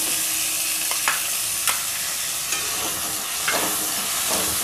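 Diced tomatoes hitting hot oil in a kadhai of frying potato, carrot and onion, setting off a sizzle that jumps up at once and then holds steady. A spatula scrapes against the pan every second or so as the vegetables are stirred.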